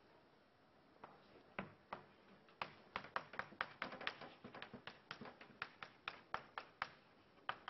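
Chalk tapping against a chalkboard while writing, a quick irregular run of short sharp taps starting about a second in.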